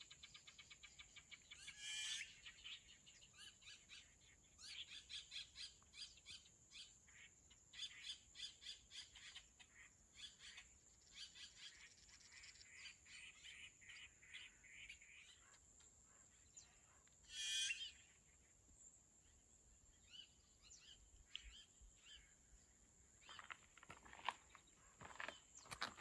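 Faint wild birds chirping in quick trills, with two louder calls about two seconds in and again past the middle. Footsteps on the trail start near the end.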